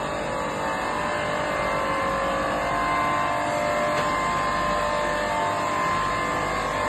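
Glass-processing machinery running in a workshop: a steady mechanical whir with a faint high whine.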